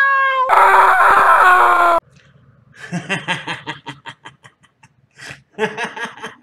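A kitten meows, then a louder, harsh, drawn-out cat cry with a slowly falling pitch lasts about a second and a half and cuts off sharply. It is followed by a few seconds of a quieter voice talking in short choppy bursts.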